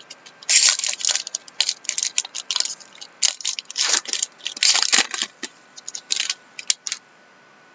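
Plastic and foil trading-card packaging crinkling and crackling as hockey cards are handled, in irregular bursts that stop about a second before the end.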